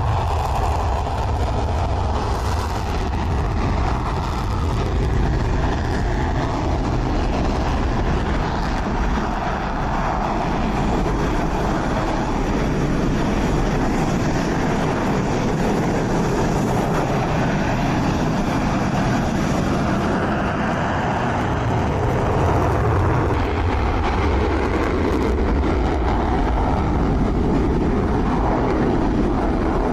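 Dassault Rafale fighter jets' engines running, a loud steady noise that swells and eases slowly.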